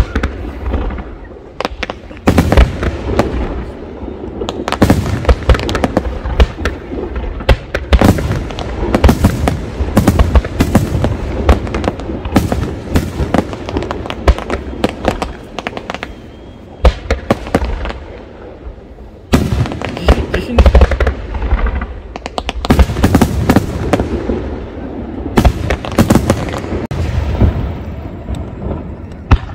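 Aerial fireworks shells bursting: many sharp bangs and crackles in quick volleys, with short lulls between them and a dense run starting about 19 seconds in.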